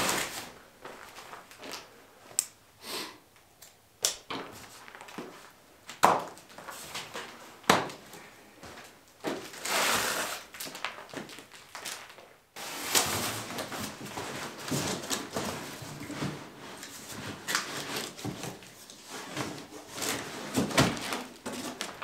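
A cardboard shipping box being unpacked: plastic packing straps pulled off and cardboard and packaging handled, with scattered sharp clicks and knocks and stretches of rustling and sliding.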